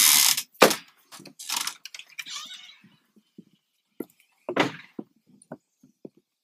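A wooden screen door bangs shut with a sharp knock about half a second in, just after a brief rush of noise. Footsteps and a few knocks on the wooden deck follow, with another heavier thud near the middle and lighter steps near the end.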